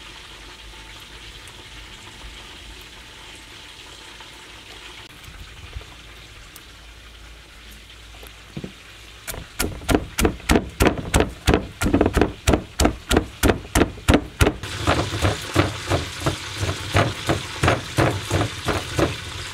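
Wooden pestle pounding in a clay mortar, crushing raw tamarind and red chilies for a dipping sauce. The strokes start about halfway through and come steadily at about four a second, a little softer near the end.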